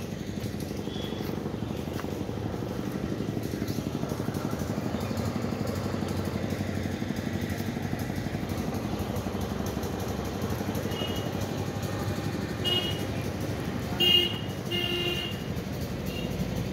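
A vehicle engine running steadily close by, a low, evenly pulsing hum. Near the end come a few short, high-pitched tonal sounds.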